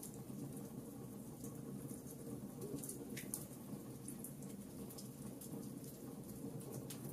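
Wood fire in a fireplace, logs crackling: irregular small pops and snaps over a steady low hum.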